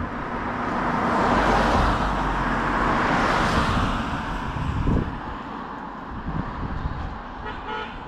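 A road vehicle passing close by: a rush of engine and tyre noise that swells over the first few seconds and then fades away.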